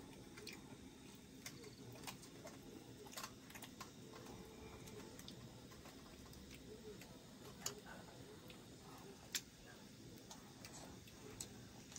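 Faint eating sounds: scattered light clicks and taps of food being broken and picked by hand from a steel plate, over a steady low background noise. Two sharper clicks stand out about two thirds of the way through.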